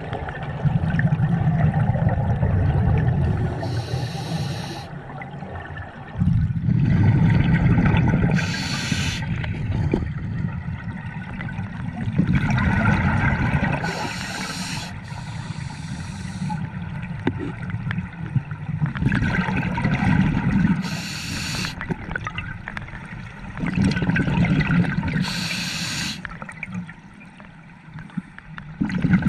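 Scuba diver breathing through a regulator underwater: each exhale is a long bubbling surge from the exhaust, and each is followed by a short hiss of the next inhalation. The breaths repeat about every five to six seconds, roughly five full breaths.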